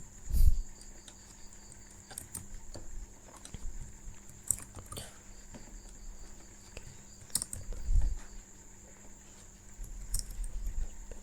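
Computer keyboard and mouse clicks at irregular intervals while text fields are being edited, with two low thumps about half a second in and about eight seconds in, over a faint steady high whine and hum.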